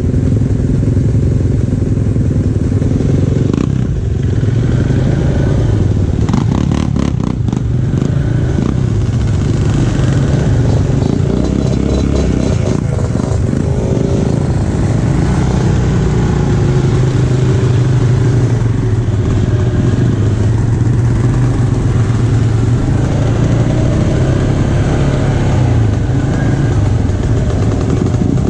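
ATV engine running steadily, with a spell of rapid clattering about six to eight seconds in.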